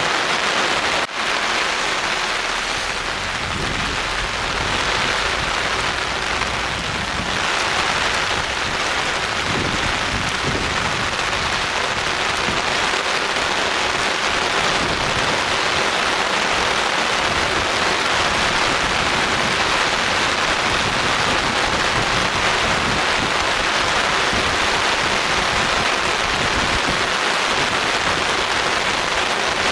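Steady rain falling, an even hiss of drops on surfaces, with a very brief dropout about a second in.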